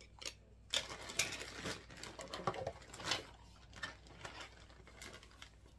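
Hard plastic puzzle-ball parts being handled: a run of light clicks, knocks and rustling, busiest in the first three seconds and quieter after.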